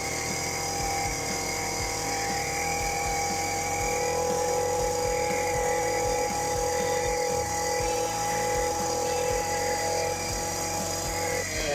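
STIHL FC 56C edger's engine running steadily at high revs with a high, even whine that wavers slightly in pitch about halfway through, then drops at the very end. It now nearly reaches full throttle after its clogged spark arrestor screen was cleared, though it still needs a slight carburetor adjustment.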